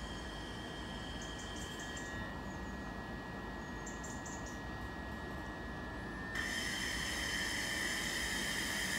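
Class 375 Electrostar electric multiple unit standing with a steady high electrical whine from its on-board equipment; about six seconds in a louder, many-toned electrical whine cuts in suddenly as traction power is applied and the train starts to pull away, with a rising whine near the end.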